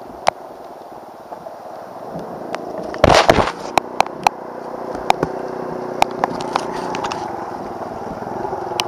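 An ATV engine running and growing louder as a second quad rides up through mud and water. Scattered sharp taps of rain hit the helmet camera, with a louder rough blast of noise on the microphone about three seconds in.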